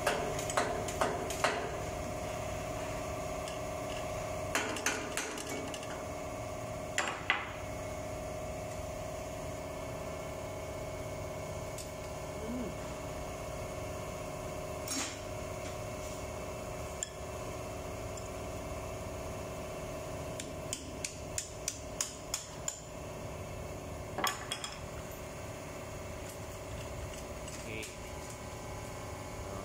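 Metal clinks and taps of a spanner on the bolts and pipe connections of a shell-and-tube refrigeration condenser being dismantled. They come in scattered knocks, with a quick run of about eight ticks, some four a second, about two-thirds of the way in. A steady machinery hum runs underneath.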